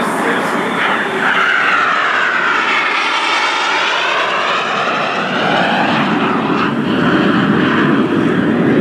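Aermacchi MB-339 PAN jets' Rolls-Royce Viper turbojets running loudly as they fly past. Through the first half the engine noise carries a whine that sweeps down and then back up.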